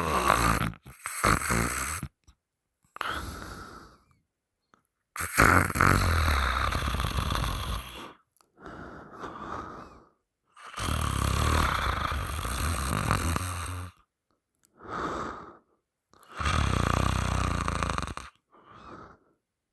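A person snoring loudly through an open mouth: four long snores about five seconds apart, each followed by a shorter, quieter breath out.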